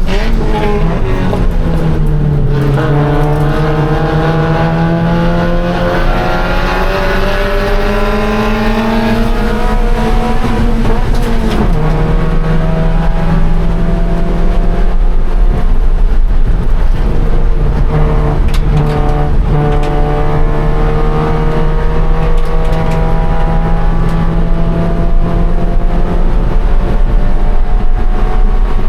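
2013 Scion FR-S's 2.0-litre flat-four engine at race pace on E85: the revs fall at the start, climb steadily for several seconds, drop sharply at an upshift a little before halfway, then climb slowly and steadily again.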